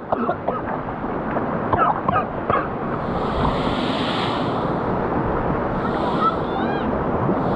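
Steady rush of water in a river pool fed by a small waterfall, with splashing close by. Two or three short, high voice cries come through briefly, about two seconds in and again near the end.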